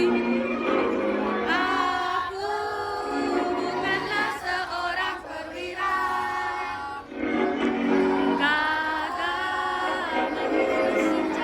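Music with a group of voices singing a melody in drawn-out phrases over accompaniment.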